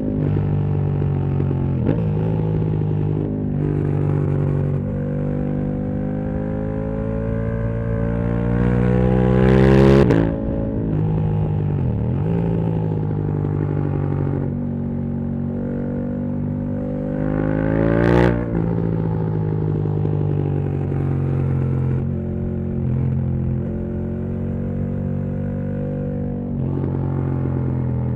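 KTM 1290 Super Duke R's V-twin engine, breathing through a full titanium Akrapovič exhaust, pulling under way. Its note climbs slowly and drops sharply with a short sharp burst of noise about ten seconds in, climbs again and drops the same way near eighteen seconds, then runs at a steadier pitch.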